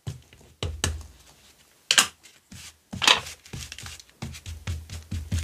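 Irregular taps and knocks with light rustling, from hands working a fabric-scrap journal cover on a table.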